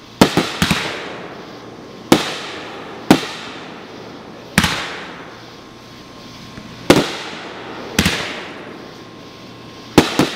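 Aerial firework shells bursting: about ten sharp booms at irregular intervals, some in quick pairs, each fading out over a second or so.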